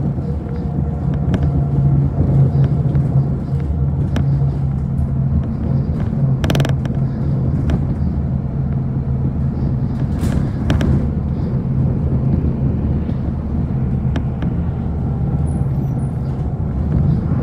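Steady engine and road noise heard from inside a moving city bus, a low hum with scattered light rattles. Two brief hissing bursts stand out, about six and ten seconds in.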